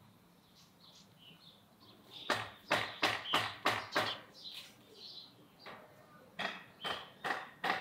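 A quick run of sharp knocks, about six in two seconds, then a few more near the end, with faint bird chirps in the background.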